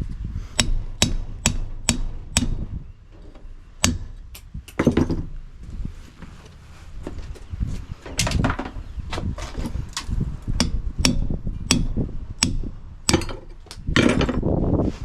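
Hammer blows on a chisel, cutting copper pipe off a fridge compressor's steel sealed unit. The sharp metallic strikes come in runs of about two a second, with short pauses between the runs.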